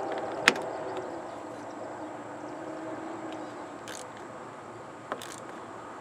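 A few sharp metallic clicks and taps of hand tools working the negative battery cable onto its terminal. The loudest is about half a second in, with fainter ones around four and five seconds, over steady background noise.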